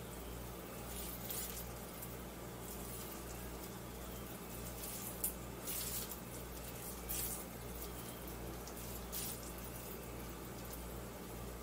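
Hands squeezing and rolling a moist brown-rice mixture into balls: soft, faint squishing and handling noises every second or two. A steady low hum runs underneath.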